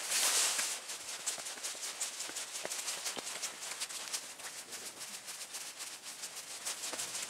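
Footsteps on a path and stone steps, sped up by fast-forward so that they run together into a quick, rattling patter of ticks. A brief rush of noise comes right at the start.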